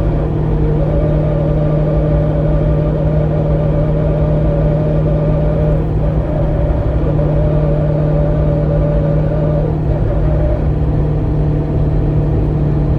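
A vehicle at highway speed making an unexplained noise: a steady low drone under a higher whine that drops out briefly a few times and fades away a few seconds before the end.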